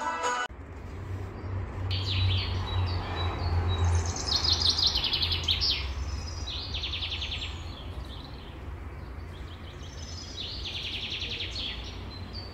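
Small songbirds chirping and singing in repeated bursts of quick, high trills, over a steady low rumble.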